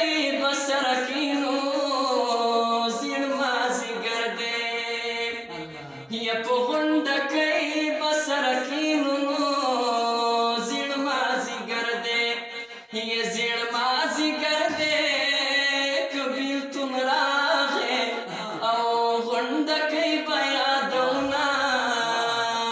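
A man singing a Pashto folk song in long, ornamented, held phrases, with two brief breaks between phrases.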